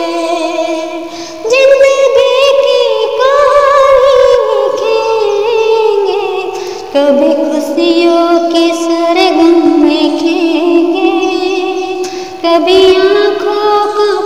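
A woman singing an old Hindi film song in long, held notes with vibrato. She breaks off briefly for breath about a second and a half in, again near the middle, and once more near the end.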